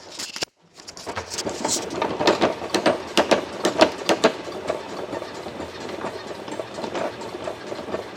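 Shawn Lee X-Bike indoor exercise bike being pedalled, with a rapid run of clicks and squeaks from its pedal crank mechanism. The crank joints have just been oiled, but the bike still squeaks.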